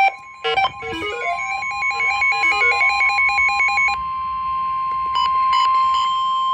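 NOAA Weather Radio warning alarm, a single steady tone of about 1050 Hz, signalling that a tornado warning broadcast follows. For about the first four seconds a rapid repeating run of high electronic notes plays over it.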